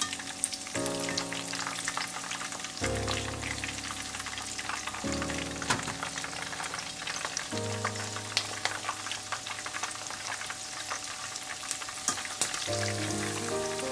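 Green bell pepper pieces deep-frying in hot oil, a steady crackle and sizzle, while they are oil-blanched until bright green. Background music chords play underneath.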